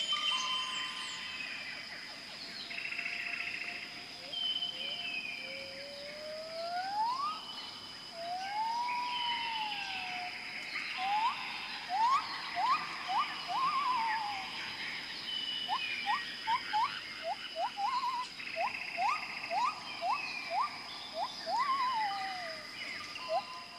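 Jungle ambience: several birds or other animals calling at once, with whistled notes that glide up and down, a quick series of short rising whistles about twice a second through the second half, and chattering trills higher up, over a steady high-pitched hum.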